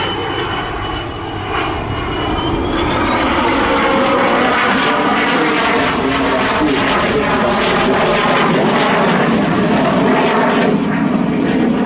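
Saab JAS 39 Gripen's Volvo RM12 jet engine in a slow, high-alpha turn: a high whine that rises in pitch a few seconds in as the engine roar grows louder and stays loud.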